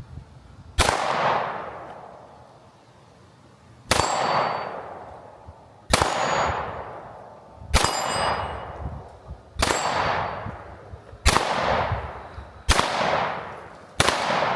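Eight 9mm pistol shots from a Sig P365 X Macro, fired one at a time at an uneven pace. Each shot is followed by a ring from a struck steel target that fades over a second or so.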